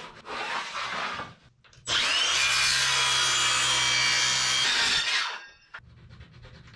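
Cordless circular saw starting up with a rising whine and cutting across a sheet of half-inch sapele plywood for about three seconds, then spinning down. A short rubbing sound comes before it.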